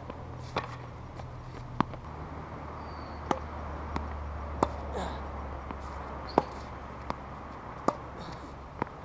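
Tennis rally on a hard court: about a dozen sharp knocks of the ball coming off the rackets and bouncing on the court, at uneven intervals, over a low steady rumble.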